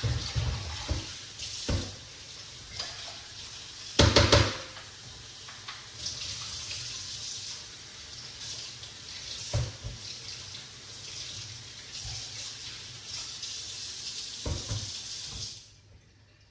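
Water running steadily into a kitchen sink as berries are rinsed, with a few clunks of kitchenware, the loudest about four seconds in; the water cuts off shortly before the end.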